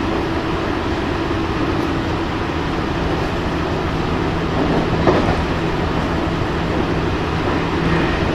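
Onboard running sound inside the JR Central 313 series motor car KuMoHa 313-310 at speed: steady rumble of wheels on rail with a steady hum in it, and a brief louder clatter about five seconds in.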